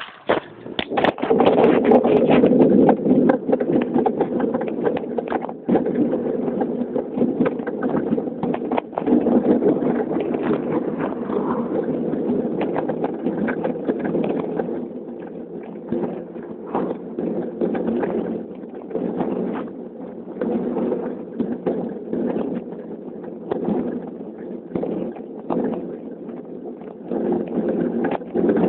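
Wind and riding noise on the microphone of a camera carried on a moving bicycle: a steady rushing with frequent clicks and knocks. It is loudest in the first few seconds and eases a little about halfway through.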